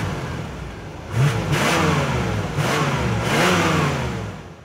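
1990 Chevrolet Silverado SS454's 454 big-block V8 revved in several blips, the pitch rising and falling each time, then fading out near the end.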